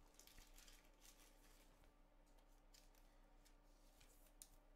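Near silence: faint scattered clicks and rustles of trading cards being handled, with one slightly louder click near the end.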